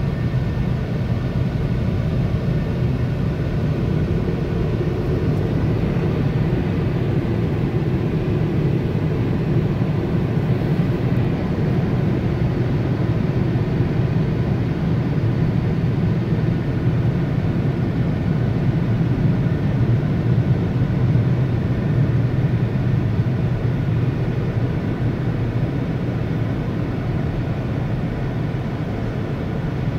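Automatic car wash dryer blowers running as a steady, loud roar, heard from inside the car at the end of the wash.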